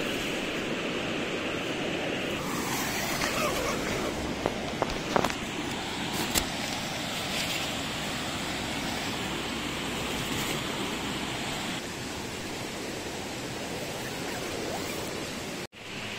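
Steady rushing water noise, with a few sharp knocks and rustles about four to six seconds in.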